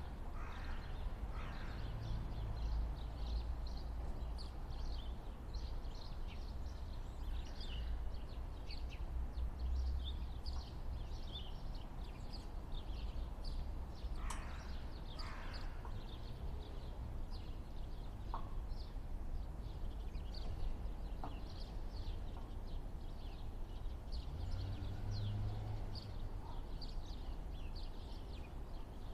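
Outdoor ambience of many small birds chirping over a steady low rumble, with a couple of harsher, lower calls about halfway through.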